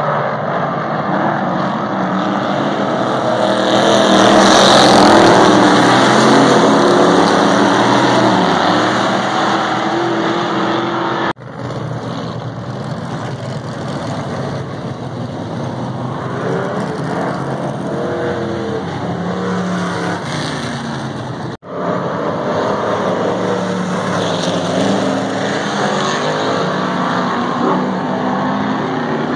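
Several old-school stock car engines running hard on a dirt oval, their pitch rising and falling as they rev and pass by. The sound breaks off abruptly twice, about 11 and 22 seconds in, and picks up again.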